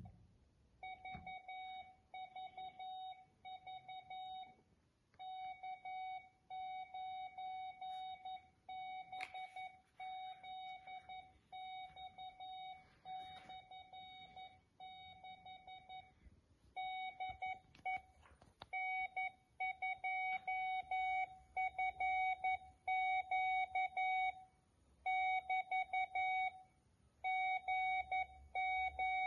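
Morse code being played as a single steady beep tone keyed on and off in dots and dashes, grouped into characters with short gaps between them. The tone gets louder a little past halfway through.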